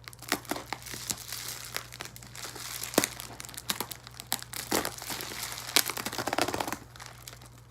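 Packaging crinkling and tearing as it is worked open by hand, a busy run of crackles and sharp snaps.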